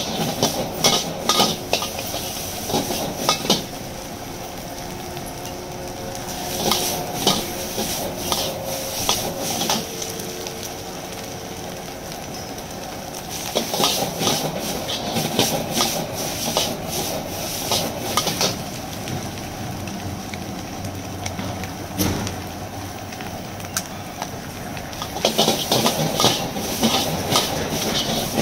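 A metal spatula scraping and clanking against a wok as noodles are stir-fried and sizzle. The strokes come in four bursts of rapid clatter, with stretches of steady sizzling and gas-burner noise between them.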